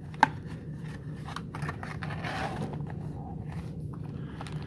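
A trading-card box and its paper contents being handled and opened: a sharp click about a quarter second in, then light scraping, ticking and a spell of rustling of cardboard and paper.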